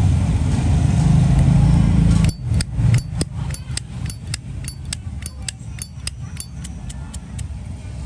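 A low rumble fills the first two seconds. Then a Zippo lighter's hinged lid is flipped open and snapped shut over and over: a quick run of metallic clicks, about four a second, each with a short ring.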